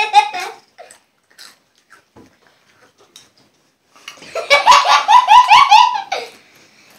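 Boys laughing: a short burst of high-pitched giggling at the start, a pause, then a longer run of pulsing laughter about four seconds in that lasts about two seconds.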